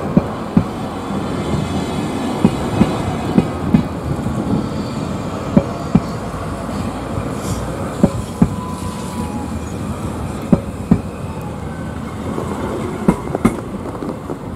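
PKP Intercity ED160 (Stadler FLIRT) electric multiple unit rolling along the platform with a steady rumble, its wheels clicking over rail joints in pairs about every two to three seconds.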